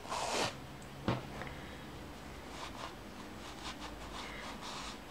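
Acrylic fiberfill being handled and pushed into a crocheted amigurumi body: a short rustle at the start, a click about a second in, then faint, scattered rustling.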